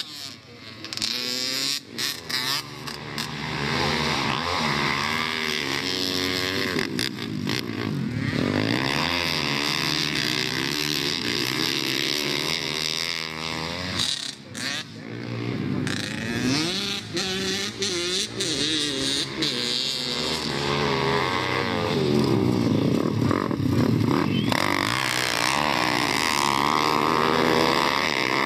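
Pit bikes' small single-cylinder engines racing on a dirt track, revving up and down over and over as the riders accelerate and ease off through the corners. The loudness dips briefly about a second in and again around the middle.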